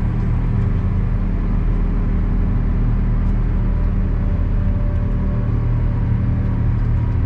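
Valtra tractor's diesel engine running steadily under load, heard from inside the cab as it tows a loaded silage trailer of about 30 tonnes along a road. The engine drone holds a constant pitch.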